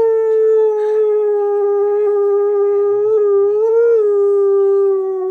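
Husky howling one long, held note whose pitch sags slowly, with a brief waver about four seconds in.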